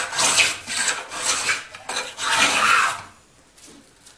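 Small Japanese hand plane (kanna) taking shavings off hard walnut in a quick run of short strokes, about two a second. The iron scrapes and hisses through the wood, and a longer final stroke stops about three seconds in.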